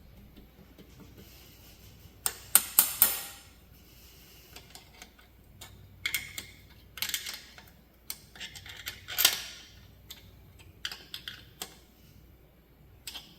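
Metal clanking and clattering as hard objects are handled and set down on steel: a loud cluster of clanks about two and a half seconds in, more clatter around six to seven seconds, a loud clank near nine seconds, and lighter clicks after.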